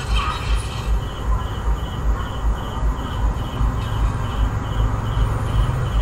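Video game audio: a cricket-like chirp repeating evenly about two to three times a second, over a low pulsing thud in the same rhythm.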